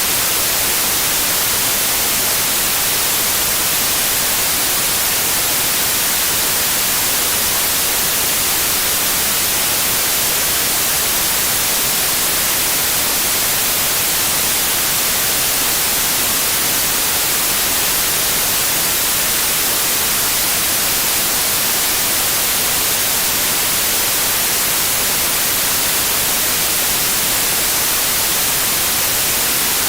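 Television static: a steady, loud hiss of white noise, even and unbroken, brightest in the highs.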